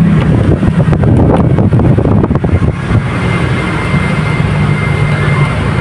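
A steady low engine hum runs throughout, with a quick run of small metallic clicks and taps over the first few seconds as a battery cable lug and terminal screw are handled; a faint high steady whine joins about halfway.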